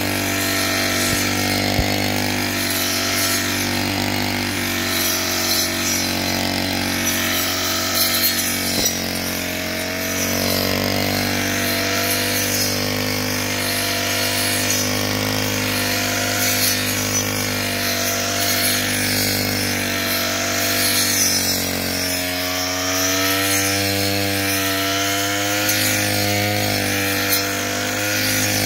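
Brush cutter fitted with a 12-inch circular saw blade, its small engine running steadily under load while cutting grass. The engine pitch wavers up and down more in the last few seconds.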